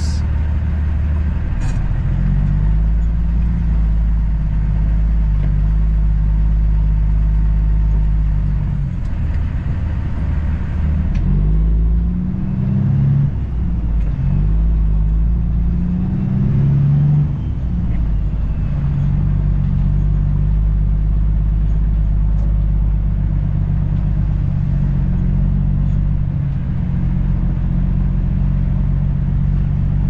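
Semi truck's diesel engine heard from inside the cab while the rig creeps through a parking lot, a steady low hum. About midway the revs rise and fall a few times as the driver accelerates and slows.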